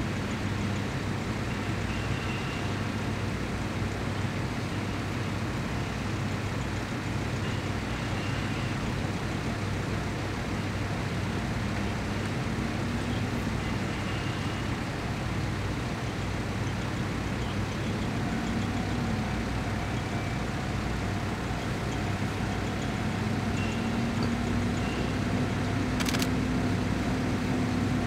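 Steady road-traffic noise, with an engine drone that grows gradually louder over the last few seconds and a single sharp click near the end.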